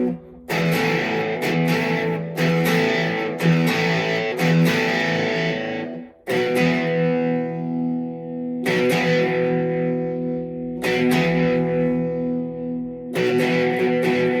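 Instrumental break of a blues-rock song led by electric guitar. It plays held chords that stop short twice, about half a second in and again about six seconds in, and the chords are left to ring and fade in places.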